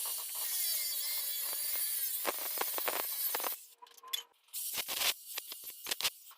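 Water running in a steady hiss, which stops about three and a half seconds in; a run of sharp clicks and knocks follows.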